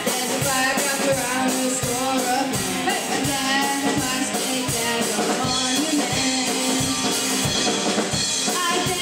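Rock band playing: a young girl singing lead over electric guitar, with a drum kit keeping a steady beat.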